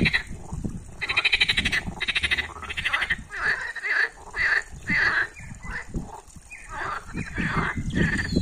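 Green frogs (European water frogs) croaking in a chorus, several calling over one another. The calls are trains of rapid pulses, the loudest from about one to three seconds in, with shorter croaks after.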